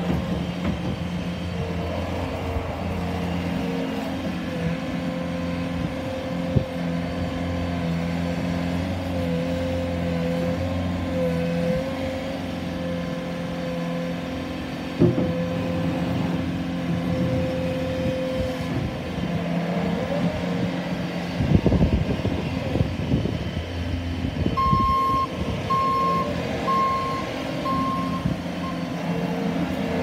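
Bobcat S590 skid-steer loader's diesel engine running steadily as the machine drives and turns, with a few loud clunks midway. Near the end its reverse alarm beeps five times, about once a second.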